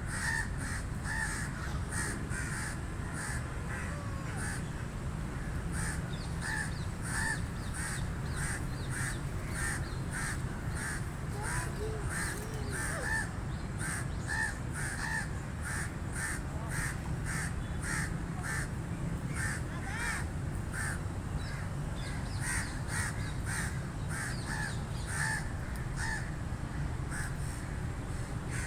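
Crows cawing over and over, short caws following one another about twice a second, over a steady low rumble.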